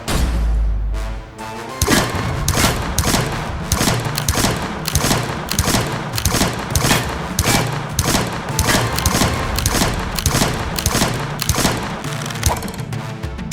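Trap-style background music: a deep bass swell at the start, then a fast beat of sharp hits over steady bass.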